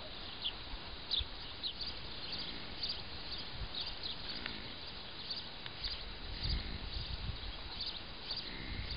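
Outdoor ambience with small birds chirping, short high chirps repeating throughout, and a few low thumps about six to seven seconds in.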